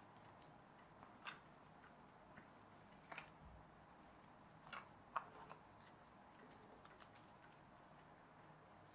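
A few light clicks and taps of the snap-together pieces of a pull-back toy plane kit being handled and pushed into place, four or so in the first half, the sharpest about five seconds in, against near silence.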